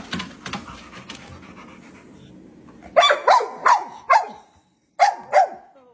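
Boxer/Staffordshire terrier mix dog barking at a walking-pad treadmill: six sharp barks in two bursts, four about halfway through and two more near the end. Faint clicking and a low hum come before the barking.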